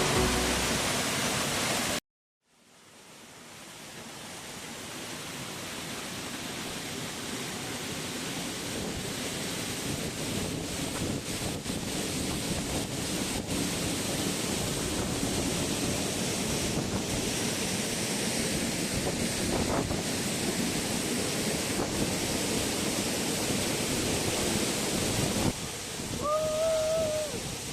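Music stops about two seconds in, then the steady rushing of a waterfall fades in and holds. A short high-pitched call sounds near the end.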